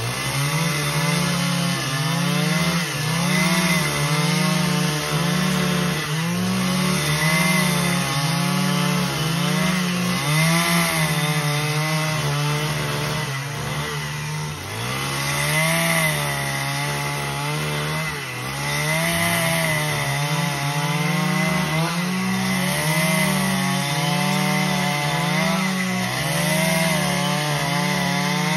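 Two-stroke petrol chainsaw running under load, ripping lengthwise along a timber beam to cut a long plank. Its engine pitch dips and recovers every second or two as the chain bites into the wood.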